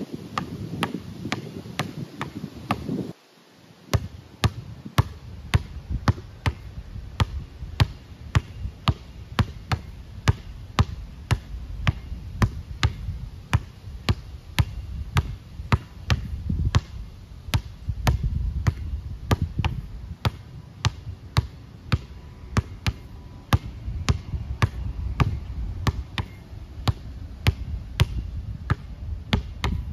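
Basketball dribbled on an outdoor concrete court: steady, sharp bounces about two a second, with a brief break about three seconds in.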